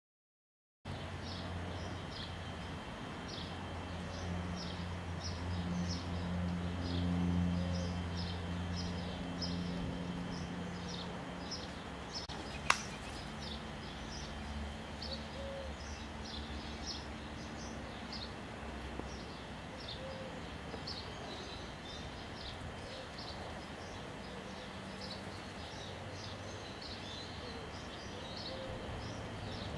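Outdoor ambience of small birds chirping repeatedly in short high calls, over a low steady hum that fades out after about ten seconds. A single sharp click sounds about halfway through.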